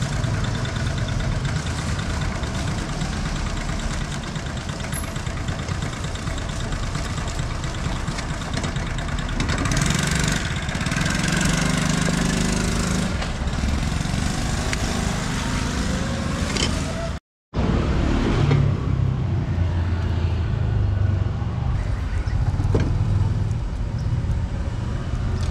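Street traffic noise: motor vehicle and motorbike engines running steadily. The sound cuts out completely for a moment about two-thirds of the way through.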